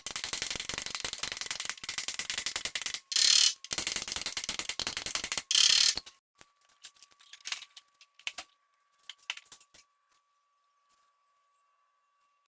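Rapid, dense mechanical clicking, like a ratchet or geared mechanism working, for about six seconds, with two louder surges. Then a few scattered faint clicks.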